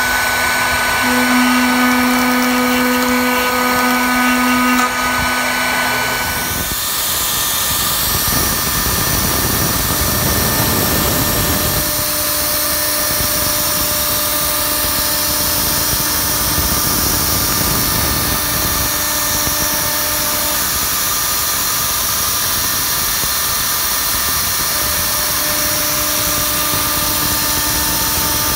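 Techno HD-II tabletop CNC router spindle running at speed with a steady whine. About six seconds in, the single-flute upcut O-flute bit plunges into the acrylic sheet, and the hiss of the cut continues under the whine from then on.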